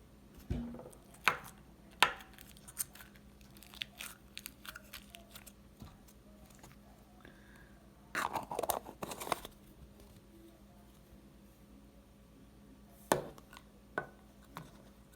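Homemade crunchy slime, with fruit chips and little white beads mixed in, being squeezed and poked by hand: scattered sharp crackles and pops. A denser run of crunching comes about eight seconds in, and a few more clicks come near the end.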